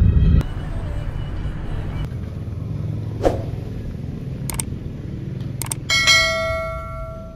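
Subscribe-button animation sound effects: a short whoosh, mouse clicks twice, then a bell notification chime about six seconds in that rings on and fades, over a low steady rumble.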